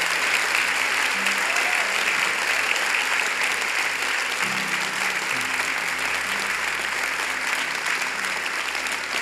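Congregation applauding steadily, with soft sustained music playing underneath.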